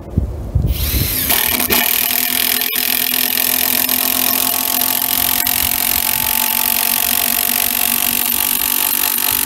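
Power drill driving a 10-inch timber screw into pine timber, the motor running steadily under load from about a second in.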